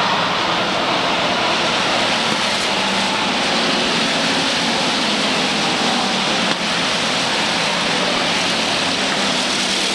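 Pure stock race cars running at speed around a short oval track, many engines blending into one steady, loud drone.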